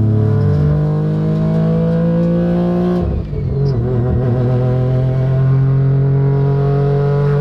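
Street-ported rotary engine of a Mazda RX-7 accelerating hard, heard from inside the cabin. The revs climb for about three seconds, drop at a gear change, then climb again more slowly in the next gear.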